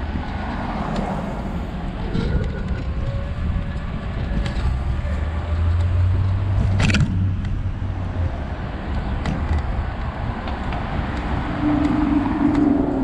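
Street traffic, cars driving past close by, over a steady low rumble, with a sharp click about seven seconds in.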